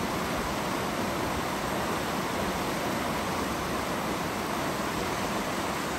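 The Upper Deschutes River's fast current rushing past, a steady, even rush of moving water.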